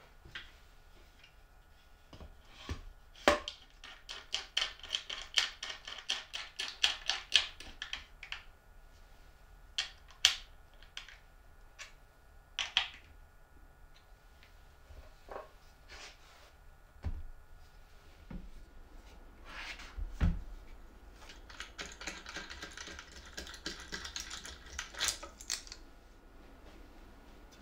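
Plywood parts of a parallel-link planer jig being handled and fitted together: single wooden knocks and bumps, and two runs of rapid clicking as the link arms are bolted on.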